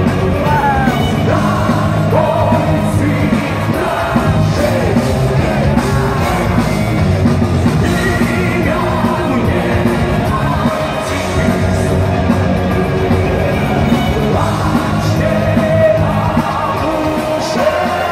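Russian heavy metal band playing live with a symphony orchestra: electric guitars, bass and drums with a male lead singer singing over them.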